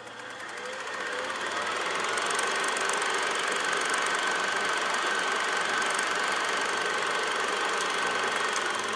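DJI Avata 2 FPV drone's motors and propellers whirring. It gets louder over the first two seconds, then holds a steady high whine.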